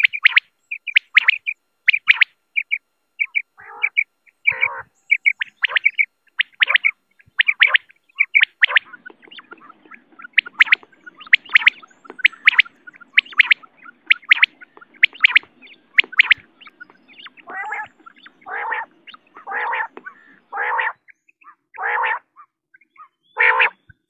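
Quail calling: short, sharp, high notes repeated in quick groups. From about two thirds of the way in, lower and longer calls come in, about once a second, alternating with the high notes.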